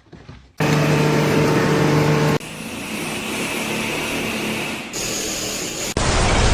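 Steady machinery noise: a loud hum with a few fixed tones, which switches abruptly twice and ends in a loud, even rushing noise.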